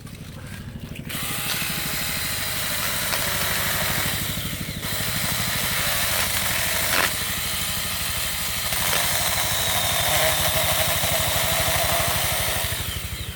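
Saker 6-inch 20 V battery-powered mini chainsaw running and cutting into poplar wood, with a steady high motor whine over the chain noise. It starts about a second in, drops off briefly near the middle, and stops just before the end.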